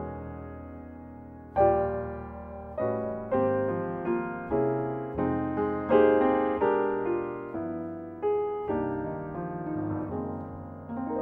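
Solo piano music, slow notes and chords struck one after another and left to ring out.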